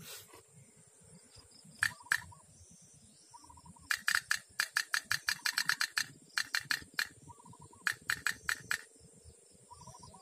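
Sharp clicks, a couple about two seconds in, then dense irregular runs of about five or six a second from about four to seven seconds in and again shortly after eight seconds. Under them runs a steady high-pitched insect drone.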